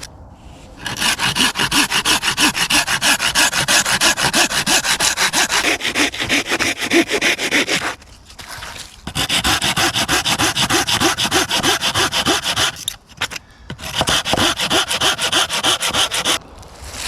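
Hand saw cutting through firewood with rapid, even back-and-forth strokes, in three bouts with brief pauses between them.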